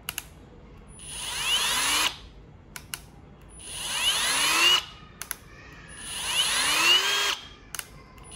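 Milwaukee M12 FUEL brushless hammer drill running free three times. Each trigger pull ramps the motor up with a rising whine, the sign of its soft start, and on the last pull the whine levels off at full speed. Short clicks come between the runs.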